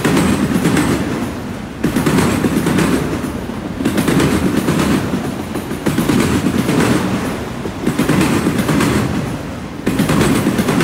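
Autorack freight cars rolling past, a steady rumble of wheels on rail with a sharp clatter about every two seconds as each car's wheel sets cross the track joints.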